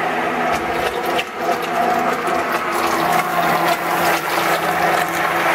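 Betty Crocker hand blender running steadily, its blade churning strawberry purée in a glass bowl as olive oil is blended in to emulsify a vinaigrette. A lower hum grows a little stronger about halfway through.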